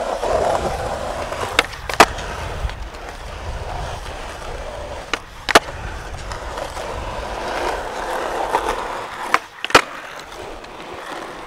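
Skateboard wheels rolling on rough asphalt, broken three times by a pop-and-land pair: the tail snaps on the ground and the board lands back under the feet less than half a second later, for flatground flip tricks.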